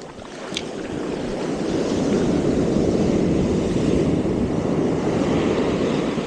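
Ocean surf washing in on a beach: a rushing wash that builds over about the first two seconds, holds steady, then eases slightly near the end.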